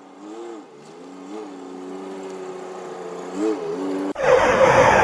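An engine revving in short blips, its pitch rising and falling and its level slowly building. About four seconds in it cuts off abruptly to a loud rushing noise.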